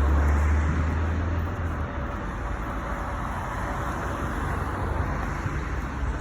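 Road traffic going by: a steady rush of passing vehicles, with a low engine rumble loudest in the first second or two as one vehicle passes close.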